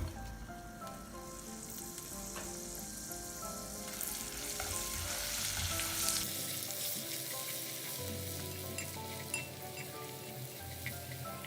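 Basil leaves deep-frying in a pan of hot oil, a steady crackling sizzle that swells louder about four seconds in.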